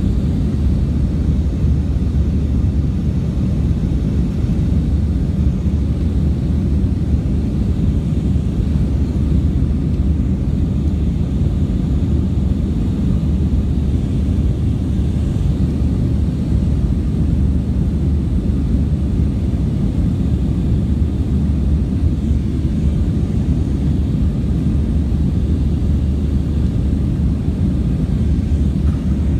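Steady low rumble of jet engines and rushing air heard inside a jet airliner's passenger cabin in flight.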